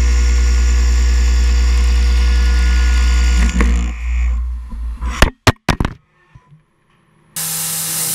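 A face mill cutting across a wide metal plate on a CNC mill: a loud, steady hum with many held tones that stops about three and a half seconds in. A few sharp clicks follow. Near the end, a small CNC mill's end mill cutting a part in a vise under coolant spray starts with a hissing noise.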